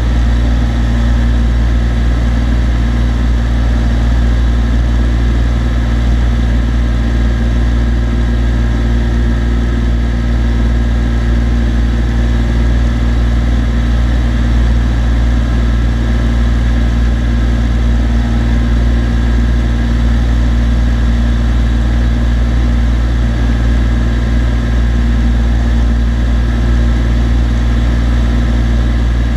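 A Cessna TU-206D's turbocharged six-cylinder engine and propeller droning steadily in flight: a loud, constant low hum held at one power setting throughout.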